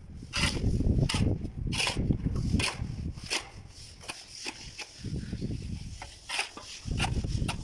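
Metal shovel scraping and scooping fallen plaster mortar off a concrete floor at the foot of a wall, with repeated sharp clicks of the blade about once a second.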